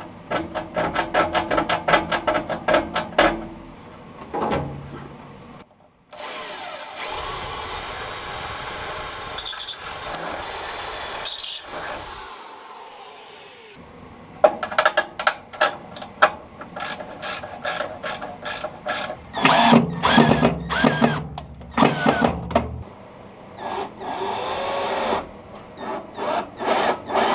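Workshop tool work: quick repeated hand-tool strokes at the start and again through the second half. In the middle a power tool runs steadily for about six seconds, then winds down with a falling pitch.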